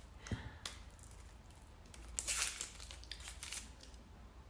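Plastic wrapping of a rapid antigen test kit being handled and opened: crinkling and rustling with a few small clicks, loudest briefly about two seconds in.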